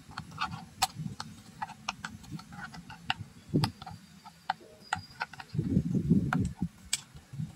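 Irregular light clicks and taps of hard plastic as small plastic wheels are pushed onto the axles of a plastic toy helicopter, with a soft low rumble of handling about two-thirds of the way through.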